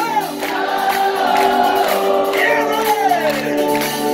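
A live band playing a song, with singing: held and gliding vocal notes over steady instrumental backing.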